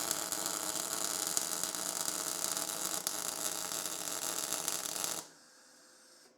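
MIG welder arc crackling steadily as a test bead is laid with pure CO2 shielding gas, at 6 meters a minute of wire and the voltage turned up from about 19 volts. The arc cuts off abruptly about five seconds in.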